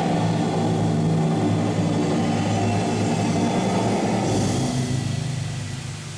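Bass-heavy music playing over the fountain show's loudspeakers, fading out over the last second or so.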